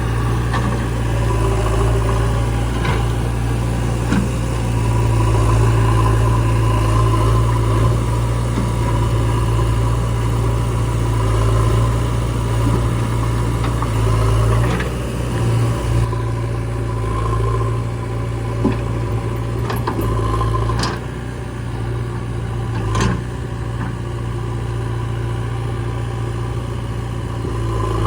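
Diesel engine of a backhoe loader working, with a steady low drone and a few sharp knocks in the second half.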